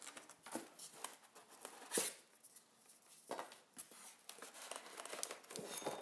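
Packaging being handled: polystyrene foam and plastic wrap rustling, crinkling and scraping in short bursts, with a few sharper knocks, the loudest about two seconds in, as parts are lifted out of the box.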